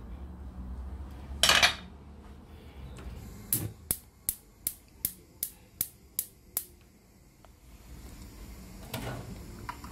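A short kitchen clatter, then a gas hob's spark igniter clicking nine times at about three clicks a second as the burner is lit. Near the end the frying pan is set down on the burner grate.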